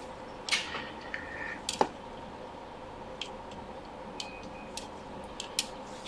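Scattered light clicks and taps of small tools and parts being handled on a repair bench, about eight in all, over a faint steady hum.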